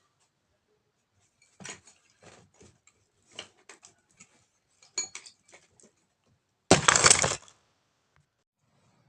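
Small metal parts and tools clinking and knocking, a dozen or so short sharp clicks. About seven seconds in there is a loud rushing burst lasting under a second.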